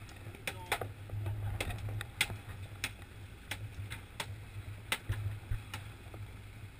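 Boat engine running with a steady low hum, overlaid by about ten light, sharp clicks and ticks at uneven intervals.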